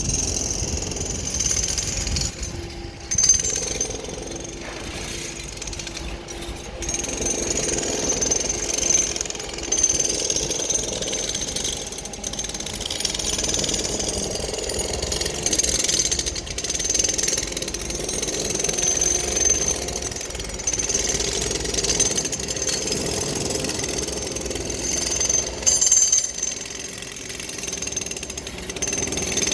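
Jackhammer breaking material with fast, steady blows, in long runs broken by a few short pauses.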